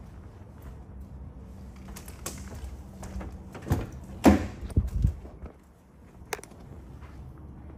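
Car door of a BMW X6 being opened: a cluster of clunks and knocks from the handle and latch about four to five seconds in, then a single sharp click about a second later.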